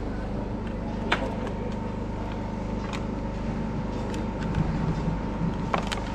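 Steady low mechanical hum of background ambience, with a few sharp clicks and faint distant voices.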